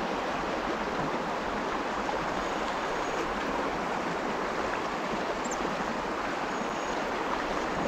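A fast, swollen river rushing over a shallow riffle, making a steady, even sound of running water.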